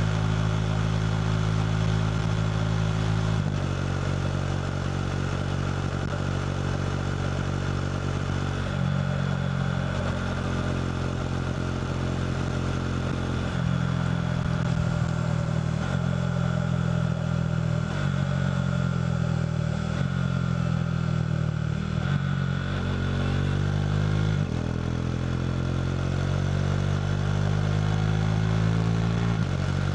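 KTM RC 390's single-cylinder engine running through a Two Brothers slip-on exhaust while riding. Its pitch jumps in steps several times with gear changes and rises steadily over the last few seconds as the bike accelerates.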